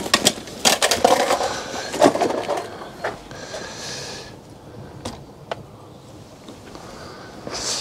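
Bags and small items being handled and put away inside a camper van: knocks, clicks and rustling, busiest in the first two or three seconds, with about a second of hissing rustle in the middle and a few faint clicks after.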